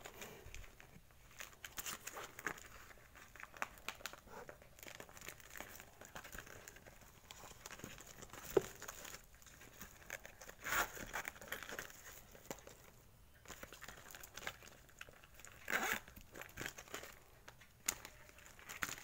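Clear plastic packaging and a clear PVC (mika) sling bag crinkling and rustling as they are handled, in irregular bursts. There is a sharp click a little past eight seconds in, and louder rustles around eleven and sixteen seconds in.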